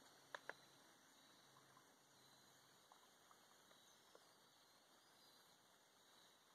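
Near silence: faint hiss with two small clicks about half a second in and a few fainter ticks later, from handling a Sawyer Squeeze water filter pouch and bottle while filtering creek water.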